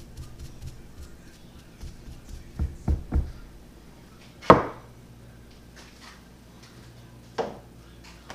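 Workshop handling sounds on wood: three dull thumps in quick succession a little before the halfway point, then a sharp knock of a hard object on wood, the loudest, and a lighter knock near the end.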